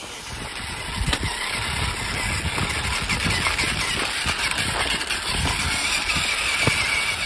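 Radio-controlled rock crawler's electric motor and gearbox whining steadily as the truck crawls, with scattered low bumps throughout. It gets louder about a second in.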